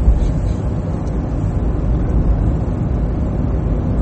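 Steady in-cabin driving noise of a Ford Ka SE with its 1.0 three-cylinder engine: engine, tyre and wind noise heard from inside the car at speed.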